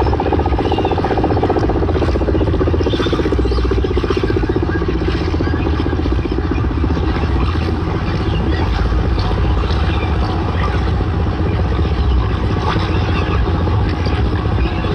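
Bass-heavy electronic dance music played by a DJ through a sound system, with a continuous low bass and a falling synth sweep over the first few seconds.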